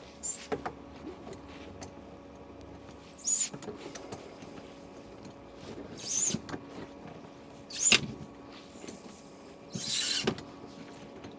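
Stiff threaded plumbing fitting being turned tight with a tool, creaking and squeaking in four short strokes a few seconds apart, the threads binding hard.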